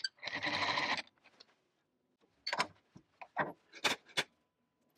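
A short rush of noise lasting under a second, then several separate sharp metal clicks and knocks as the steel shaft is unclamped from the milling-machine vise and lifted out.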